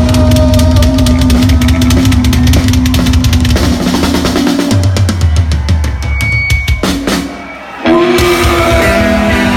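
Punk rock band playing live and loud: fast, pounding drums with electric guitar and bass. About seven seconds in the band drops out for under a second, then crashes back in.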